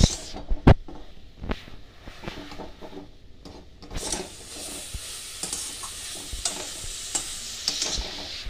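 Boiled eggs frying in a metal kadai, stirred with a metal spatula. A few sharp knocks of the spatula against the pan in the first second or so, then steady sizzling with light scraping clicks from about four seconds in.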